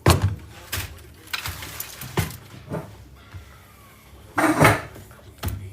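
A run of irregular knocks and clatters as hard scrap parts from an electronics teardown are shoved aside and set down, with the loudest clatter near the end.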